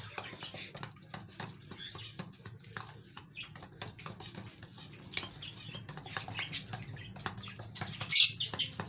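A spoon stirring and clinking against a bowl as a liquid egg mixture for bird feed is mixed, with a run of small scrapes and taps. A bird gives a loud high call near the end.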